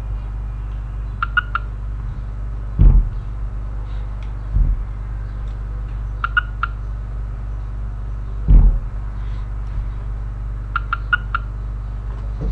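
A steady low hum, with short high chirps in groups of three about every five seconds and a few dull thumps.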